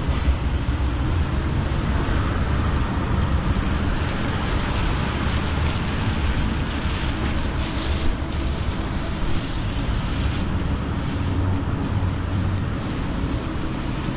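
Steady rain and wind on the microphone: an even wash of noise with a deep low rumble underneath.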